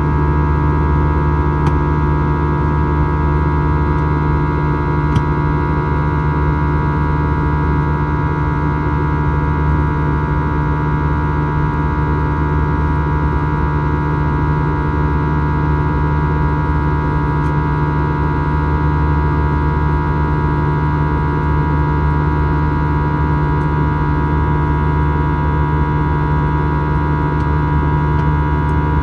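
Steady cabin drone of an Airbus A321's CFM56 turbofan engines, heard from a window seat: a deep hum with several high steady tones over it.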